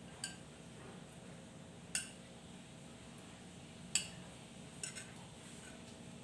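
Metal utensil clinking against a china plate and a steel wok while sauced fried fish is served: about five short, ringing clinks, the two loudest about two seconds apart, the last two close together.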